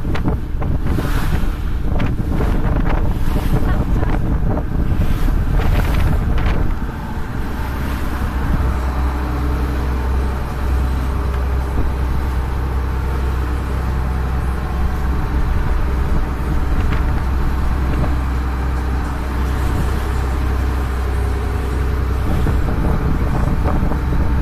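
Wind buffeting the microphone over the rush of water from a motor boat under way, then the boat's engine droning steadily from about seven seconds in.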